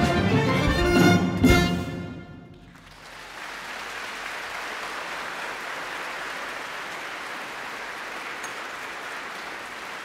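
A jazz ensemble with symphony orchestra ends the piece on a final chord with a drum hit about a second and a half in. After a short pause, the audience applauds steadily.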